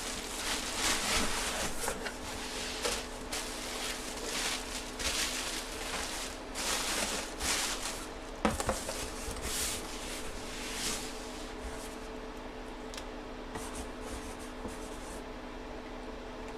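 Packaging being handled: irregular rustling and rubbing strokes, busy at first and thinning out to a few light clicks over the last few seconds, over a faint steady hum.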